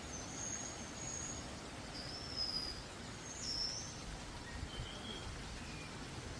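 Wild birds calling in the forest: about six short, high, thin whistled notes, some sliding up or down, scattered over a steady low background hiss.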